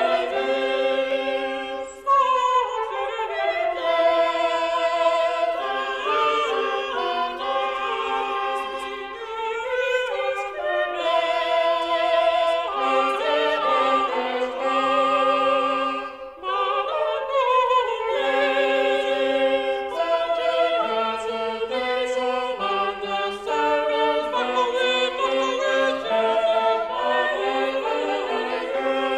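A choir singing in several voice parts, with vibrato on held notes and short breaks between phrases.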